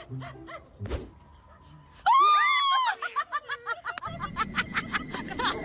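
A loud, high-pitched scream about two seconds in, lasting about a second, followed by quick repeated snickering laughter.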